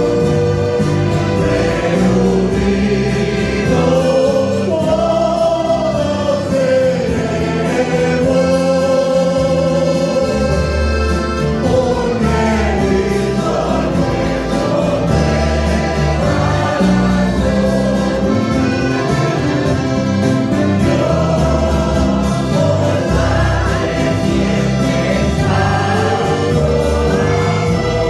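Church choir singing a hymn, accompanied by a string band of acoustic guitars and mandolins with accordion and double bass.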